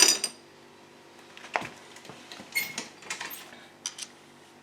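Hand tools and loose bolts clinking on metal during engine disassembly: a sharp metallic clink with a brief ring at the start, then a handful of lighter clicks and clinks spread through the rest.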